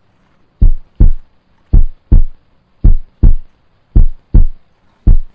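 Heartbeat sound effect: deep lub-dub thumps in pairs, about one pair a second, five pairs in all, much louder than the talk around it.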